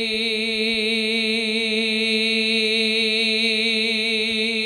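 A man's voice holding one long sung note with a slight waver, the drawn-out vowel of a devotional Urdu rubai recited into a microphone.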